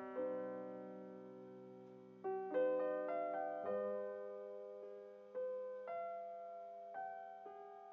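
Slow, soft piano music: single notes and chords struck every second or so, each left to ring and fade.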